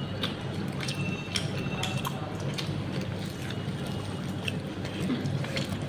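A steady low hum with scattered small clicks and crackles, from a hand picking at bread on a plastic-wrapped plate.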